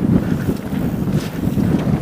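Wind buffeting the microphone of a mountain biker's GoPro on a fast trail ride, over a low rumble and scattered knocks from the bike running over rough ground.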